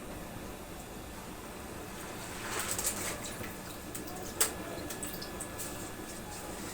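Washed rice being put into a clay pot, grains rustling with small clicks, and one sharp knock about four and a half seconds in.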